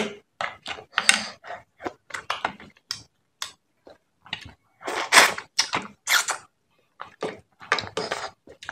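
Close-miked eating sounds: fingers picking through a curried fish head on a steel plate and chewing, an irregular run of short clicks and smacks, loudest about five to six seconds in.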